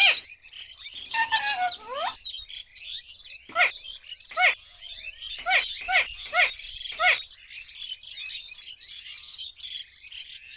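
Alexandrine parakeet calling: a gliding, voice-like call about a second in, then a run of about seven short arched squawks, over steady high-pitched chirping.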